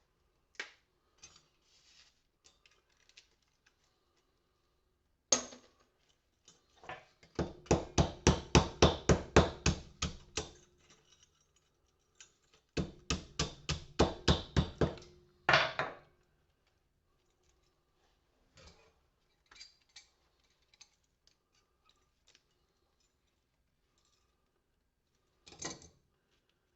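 Hand hammer striking in quick, even runs of about four blows a second, breaking up porcelain lamp-holder shells on a workbench to free the brass inside. There are two such runs, with a single heavier knock before and after, and light clinks of small metal parts between them.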